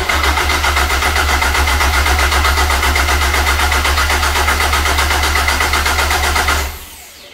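Starter motor cranking a Caterham 420R's 2.0-litre Ford Duratec four-cylinder engine with no fuel, turning it over to build oil pressure. It turns over steadily with a fast, even pulse and stops about six and a half seconds in.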